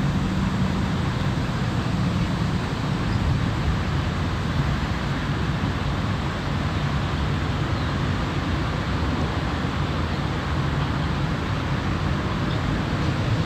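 V8 engine of a Daytona 33 Eliminator powerboat idling while moored, a steady low-pitched exhaust note from the pipes in its transom.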